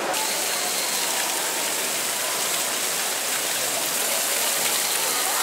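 Steady, even rush of running water, with no separate events standing out.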